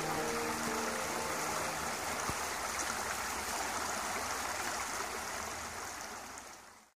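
Shallow rocky creek rushing over stones and small cascades, a steady wash of water that fades out near the end. Held music notes linger over it for the first second or so.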